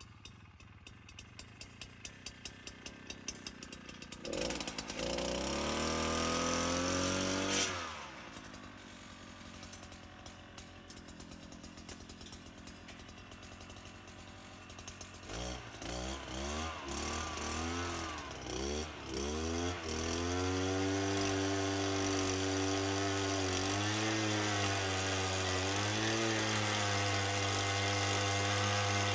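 Small petrol engine of a handheld soil auger being started. It fires and revs up for a few seconds, then cuts out suddenly. After several short sputtering attempts past the middle, it catches and runs steadily with small rises and dips in speed.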